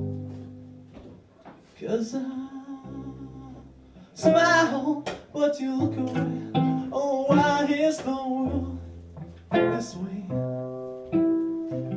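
Solo cello played pizzicato, plucked notes with a few sharp percussive hits, and a man's voice singing held, wavering notes over it about four seconds in and again near eight.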